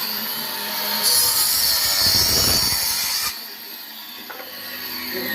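Firewood being sawn: a stretch of sawing noise lasting about two seconds, starting about a second in, then quieter.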